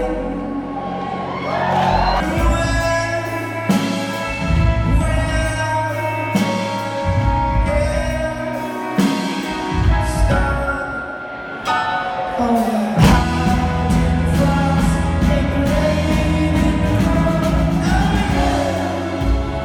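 Indie rock band playing live, with sung vocals held over guitars, bass and drums.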